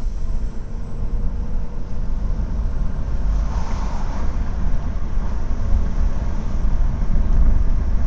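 Toyota Camry Gracia on the move, with a steady low engine and road rumble. A faint thin whistle rises slightly in pitch over the first couple of seconds, the acceleration whistle the owner is recording.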